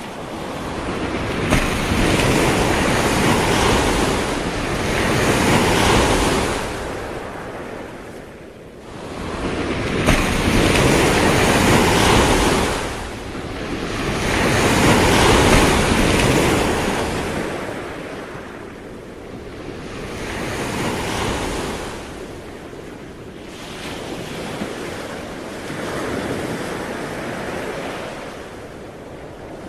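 Sea waves breaking and washing in, swelling and fading in long surges every few seconds, the surges growing weaker in the second half.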